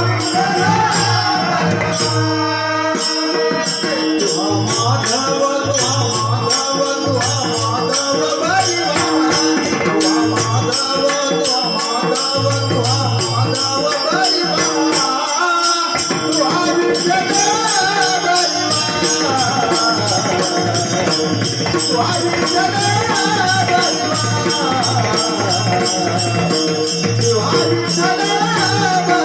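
Instrumental interlude of a Marathi devotional bhajan: a wavering melody line plays over a fast, even jingling rhythm of small cymbals and repeated low drum beats.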